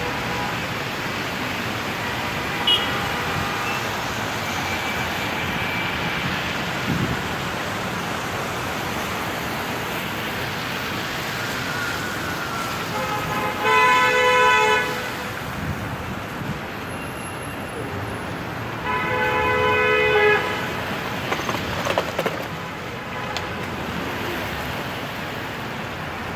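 Rush-hour city street traffic: a steady wash of engines and tyres, with car horns honking. Two long, loud horn blasts stand out, one about halfway through and another some five seconds later, with fainter toots near the start.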